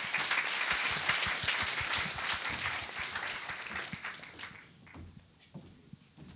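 Audience applauding, dense clapping that dies away about four and a half seconds in.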